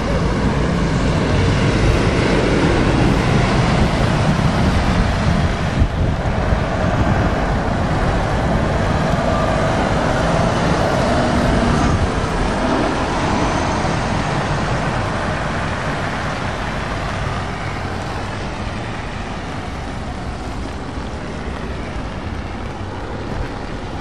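Volvo FH truck pulling a loaded low-loader trailer driving past close by on a wet road, a diesel engine running with tyre noise on the wet tarmac. It is loudest in the first half and fades gradually after about twelve seconds as it moves away, leaving the sound of traffic further off.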